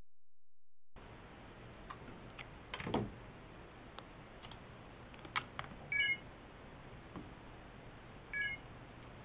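Phones being handled and set down on a charging pad: light clicks and a thump about three seconds in. Two short electronic chimes follow, about six and eight and a half seconds in, a phone's charging-started tone.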